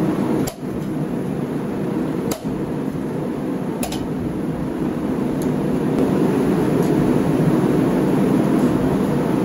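Blacksmith's forge running with a steady rushing noise, with a few sharp light metallic clicks spaced a second or two apart.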